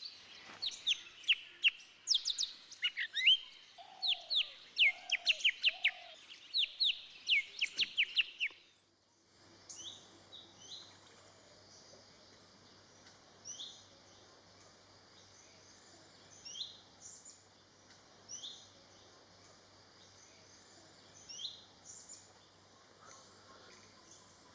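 Golden-fronted leafbird song: for about nine seconds a fast, loud run of sharp, down-slurred high whistled notes, with three lower notes in the middle. It then switches abruptly to sparse single high down-slurred call notes every second or two, over a faint steady hum.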